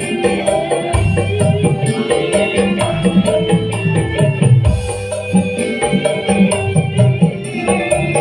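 Loud live music played through a PA sound system: a steady percussion beat with hand drum and jingling rattle-like percussion under melodic instrument lines.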